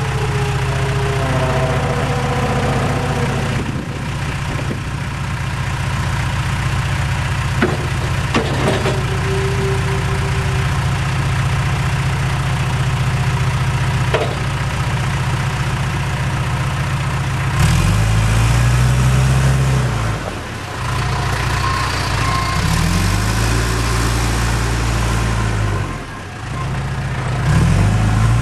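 John Deere 310E backhoe loader's four-cylinder diesel engine idling steadily, with a few sharp knocks in the first half. In the second half the engine speed rises and falls three times.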